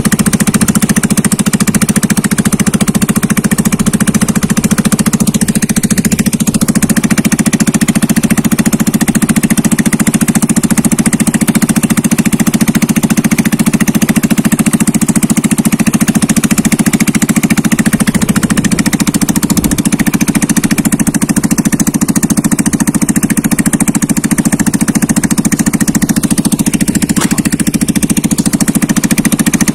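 Small gasoline long-tail boat motor running steadily under way, a loud constant drone. Its note shifts slightly a little past halfway through.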